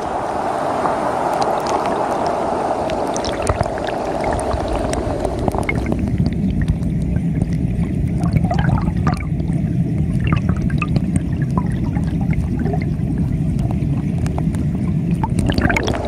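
Shallow mountain stream rushing over rocks, heard at the water surface, then from about six seconds in heard with the camera underwater: a muffled low rumble of current with small bubble pops and ticks.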